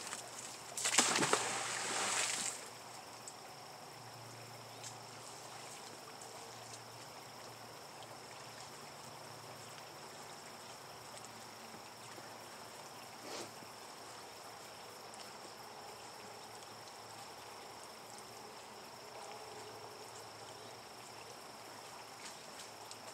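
A heavy magnet-fishing magnet, thrown on its rope, splashes into the river about a second in. Afterwards only a steady high insect drone remains over a quiet outdoor background, with one faint tick near the middle.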